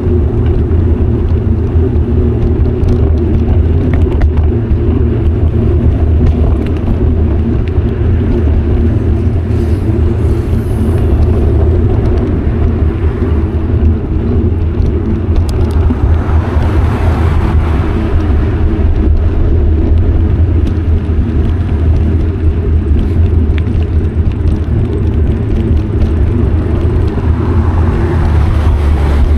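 Steady, loud low rumble of wind buffeting an action camera's microphone while cycling, mixed with tyre and road noise. A broader hiss swells up about halfway through and again near the end.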